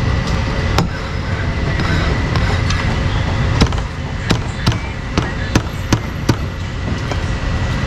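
Meat cleaver chopping meat on a chopping block: one chop about a second in, then a quicker run of about seven sharp chops, two or three a second, over a steady din of street traffic.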